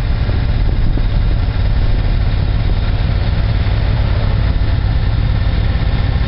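Suzuki Boulevard motorcycle cruising steadily, heard from the rider's seat: a constant engine and riding-noise rumble, heaviest in the low end.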